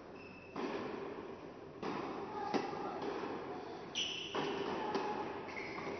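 Tennis balls struck by rackets and bouncing on an indoor court during a doubles rally, with one sharp hit about two and a half seconds in.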